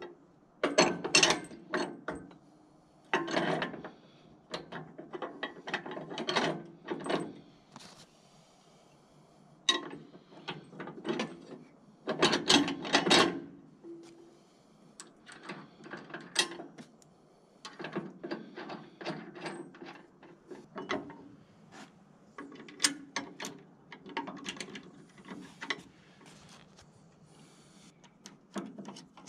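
Hand tools working the steel bolts and brackets of a sawmill head: short spurts of ratchet-like clicking and metal clinks, with quiet pauses between them.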